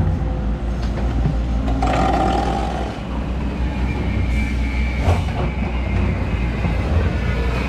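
Heavy diesel engines of an excavator and a tipper truck running with a steady low rumble during loading, with a couple of sharp knocks and a brief higher whine about two seconds in.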